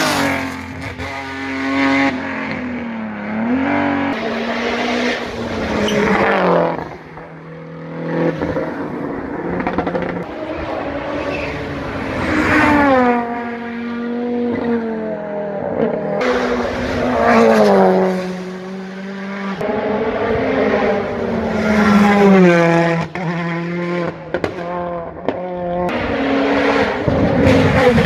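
Rally car engine revving hard through the gears, its pitch climbing and falling back again and again. It grows loud near the end as the car passes close by.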